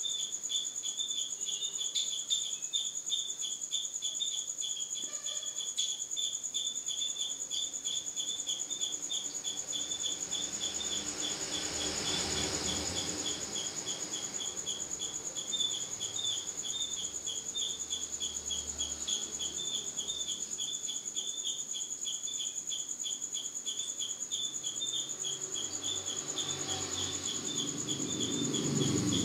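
Crickets chirping in a steady, even rhythm of a few high chirps a second, over a constant high-pitched whine.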